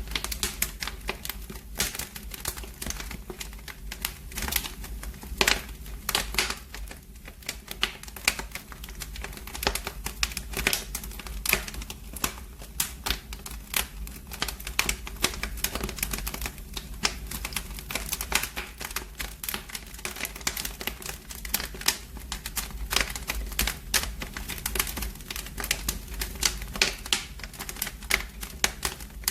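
Wood fire burning in a fireplace, crackling steadily with dense, irregular sharp snaps and pops over a low, even rumble.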